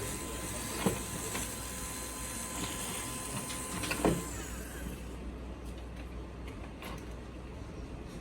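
Two sharp clicks, about a second in and about four seconds in, over a steady hum and a thin steady tone; the tone and hiss stop soon after the second click, and a few fainter ticks follow.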